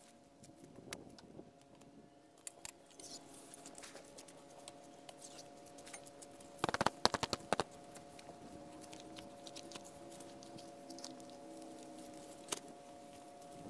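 Camp cot's metal frame being folded: a quick run of sharp clicks and clacks about seven seconds in as the frame is released and collapsed, with scattered softer rattles and one more click near the end. A faint steady hum runs underneath.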